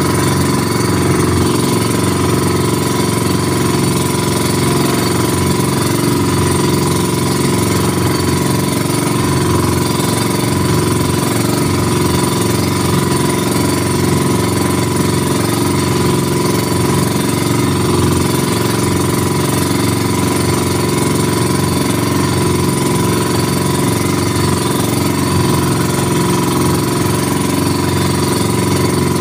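Engine of a wooden outrigger boat running steadily under way, a continuous unchanging drone.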